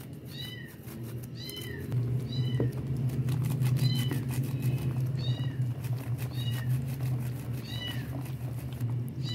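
A cat mewing over and over, short high calls about once a second, over a steady low hum.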